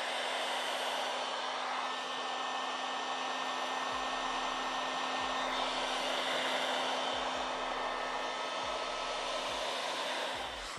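Hot air gun blowing steadily, an even rush of air with a faint steady hum, heating the screen to soften its adhesive. A few dull low thumps come in the second half.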